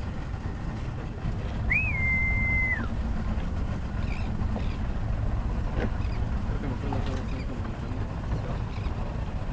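Steady low rumble of a small boat on the water, with a single whistled tone about two seconds in that jumps up briefly, holds level for about a second, then drops away.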